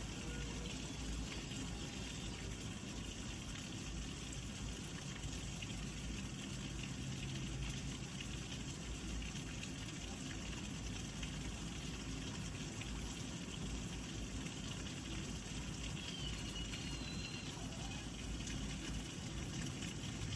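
Heavy thunderstorm rain falling steadily, an even, unbroken hiss.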